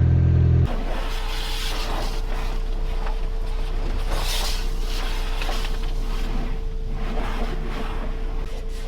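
A car engine runs loudly for under a second, then cuts off abruptly. What follows is a steady hum under a hiss that rises and falls, fitting a pressure washer rinsing road salt off the car.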